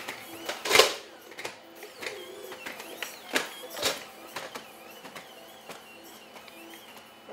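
Boston Dynamics Atlas humanoid robot walking and pushing open a door: a wavering mechanical whine with several sharp knocks and clatters, the loudest about a second in.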